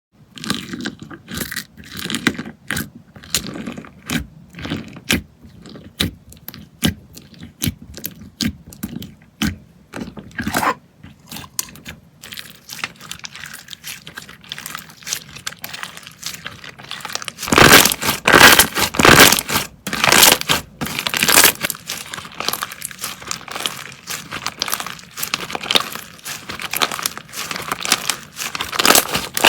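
Slime being squeezed and poked by hand, making a string of short sticky clicks, pops and crackles. About two-thirds of the way in the crackling turns louder and denser.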